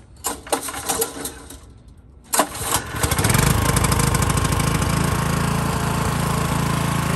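Wisconsin Robin gas engine on a walk-behind core aerator being started. A first try turns it over briefly without catching; a second try about two and a half seconds in fires, and the engine then runs steadily.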